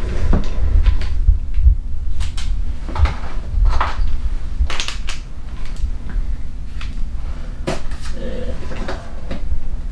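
Equipment being handled on a countertop: a scattering of knocks, clicks and clatter at irregular intervals, with a sharp click about three-quarters of the way through, over a steady low rumble.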